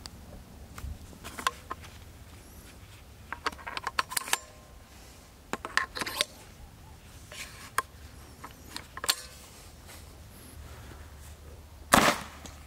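Metallic clicks and clatter of a 37mm launcher being opened and loaded by hand, then a single shot from the launcher about twelve seconds in, much the loudest sound.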